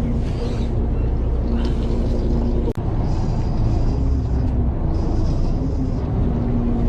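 Fishing boat's engine running with a steady low drone, broken by a brief dropout a little under three seconds in.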